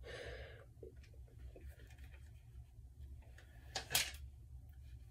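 Faint handling of a plastic-wrapped phone case: soft rustling of the plastic, then two sharp plastic clicks about four seconds in as the plastic wrapping is worked off.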